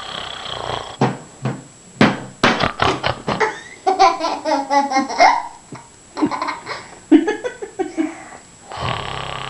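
A person laughing in short repeated bursts, with a longer wavering laugh about four to five seconds in.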